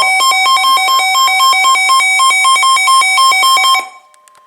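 Electronic emergency alert tone, a loud harsh trill rapidly alternating between two pitches, cutting off abruptly near the end. It signals a newly issued tornado warning.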